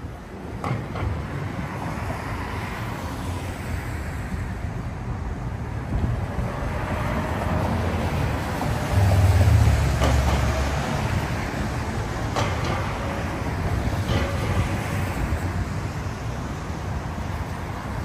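City street traffic: steady road noise of passing vehicles, with a deep engine rumble swelling for about two seconds in the middle as a heavy vehicle goes by. A few brief knocks are heard over it.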